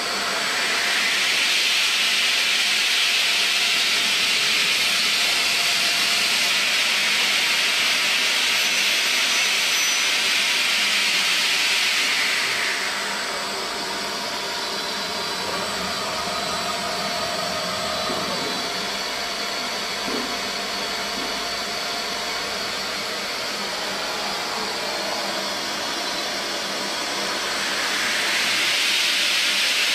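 CNC bridge saw's large circular blade cutting a stone slab, a loud steady hissing grind. About 12 seconds in it eases off to a quieter steady machine noise, and near the end the loud hissing cut returns as the blade goes back into the slab.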